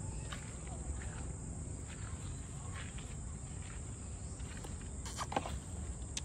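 Steady high-pitched insect chorus with a low background rumble and a few faint clicks. A short, sharp pitched sound stands out about five seconds in.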